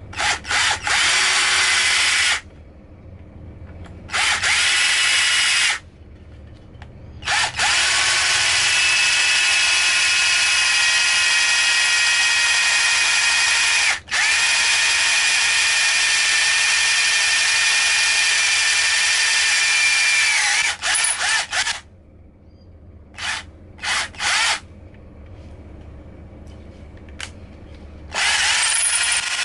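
Mikaso 12-volt cordless drill driver drilling through a block of wood with a twist bit, its motor whining steadily. It runs in separate trigger pulls: two short bursts, then one long run of about fourteen seconds with a brief stop partway, a few quick blips, and a last burst near the end.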